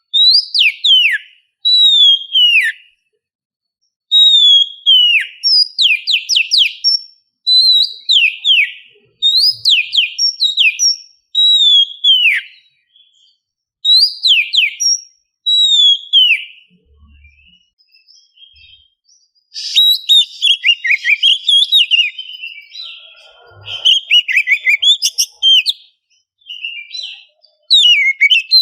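Oriental magpie-robin singing: loud whistled phrases that slide down in pitch, repeated every second or two, mixed with sharp clicking notes. After a short lull about two-thirds of the way in, the song turns into a fast, varied chattering run.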